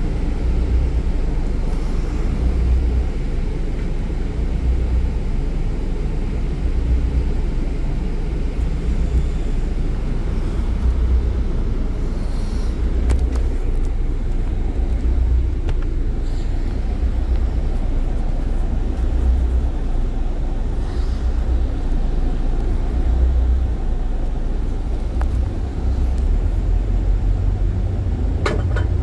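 Steady low rumble of a motor coach's engine and road noise heard from inside the passenger cabin while the bus drives, with a few faint rattles and a tone rising in pitch near the end.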